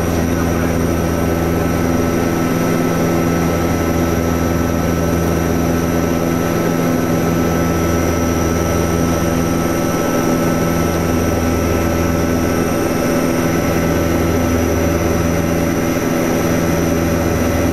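Steady drone of the Antonov An-24B's twin turboprop engines and propellers in flight, heard inside the cockpit. The low drone slowly swells and fades in a beat every three to four seconds.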